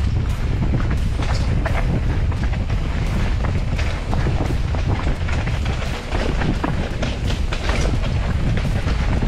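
Mountain bike ridden over rough trail: wind buffeting the camera microphone as a steady low rumble, with the bike rattling and clattering in many irregular knocks and clicks.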